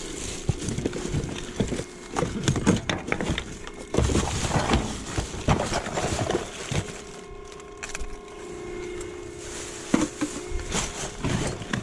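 Plastic bags and bubble wrap crinkling and rustling as gloved hands dig through a dumpster, with irregular knocks of items shifting. There is a quieter stretch just past the middle.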